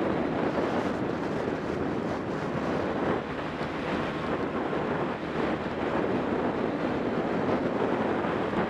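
Racing kart's engine running at speed through the corners, mostly covered by wind rushing over an onboard camera microphone: a steady, dense rushing noise.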